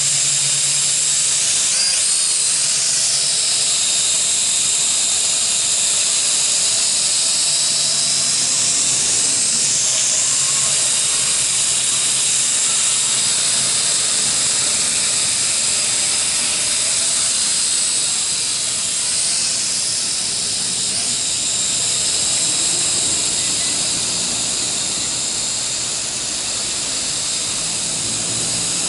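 Small RC quadcopter's motors and propellers whirring in flight: a loud, steady high-pitched whine and hiss whose pitch wavers a little now and then.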